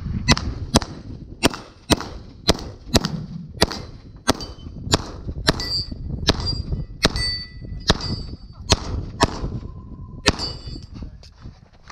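A string of about twenty gunshots fired at roughly two a second, with many of them followed by the ringing clang of hit steel targets. A short steady tone sounds about ten seconds in.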